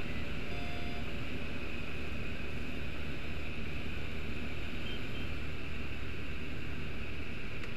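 Microlight aircraft's engine and propeller droning steadily in flight, mixed with the rush of airflow, heard from inside the cockpit.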